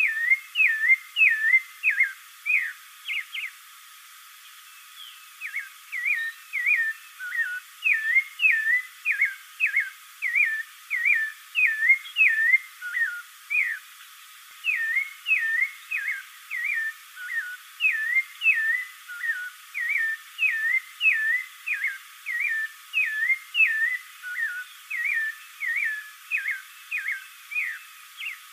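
Spectacled thrush singing: a fast run of short whistled notes that slide up and down in pitch, about two a second, broken by a brief pause about four seconds in.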